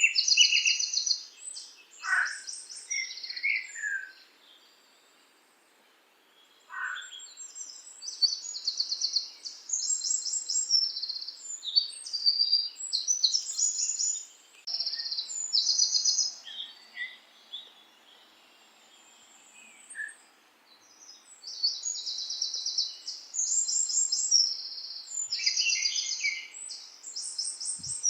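Small birds singing in high, rapid trilled and chirping phrases, one after another, with two short lulls.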